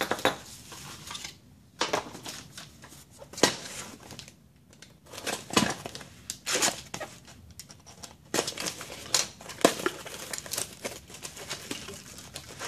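Unpacking noise: plastic bags crinkling and cardboard boxes being pulled open and handled, in irregular rustles and crackles with short pauses.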